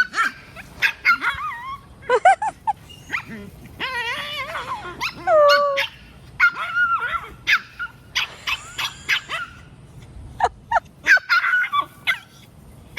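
Two dogs playing rough together: a dense string of short yips and barks mixed with longer wavering whining cries. It sounds like a fight, but it is play.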